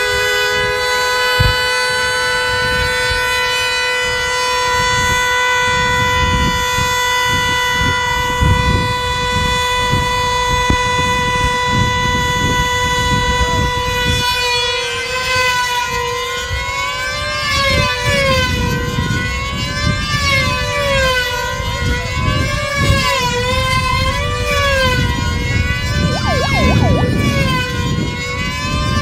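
Two control-line combat planes' small two-stroke model engines running at high revs. For the first half they hold a steady high pitch. Then, as the planes circle on their lines, the pitch rises and falls about every two seconds. Gusty wind rumbles on the microphone underneath.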